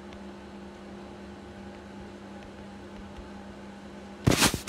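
Steady low background hum with a few faint taps of a stylus writing on a tablet screen. Near the end comes a loud, short rush of noise lasting about a third of a second.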